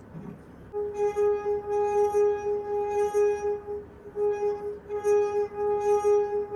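Crystal wine glass, partly filled with water, singing as a wet finger is rubbed around its rim. A single steady, wavering tone comes in about a second in, drops out briefly near the middle and then resumes.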